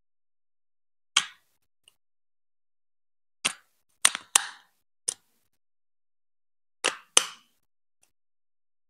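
Hard plastic Lego Duplo marble-run pieces being set down and pressed onto a Duplo baseplate: about seven separate sharp clicks and clacks, two of them in quick pairs, with silence between.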